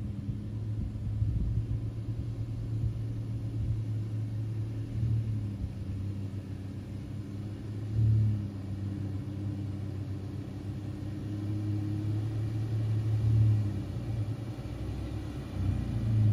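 Nissan Frontier pickup's V6 engine running at low revs as the truck crawls over a rutted trail, with brief surges of throttle about halfway through and again a few seconds later.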